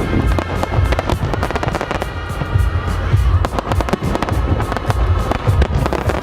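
Fireworks going off in quick succession, many sharp bangs and crackles over a low rumble, with music playing along with them.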